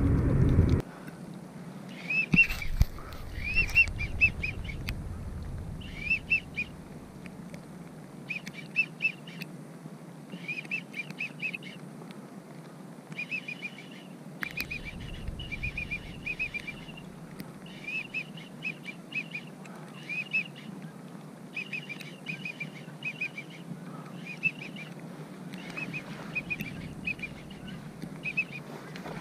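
Wigeon whistles: short, high whistled notes in groups of three or four, repeated every second or two throughout. A low rumble fills the first second.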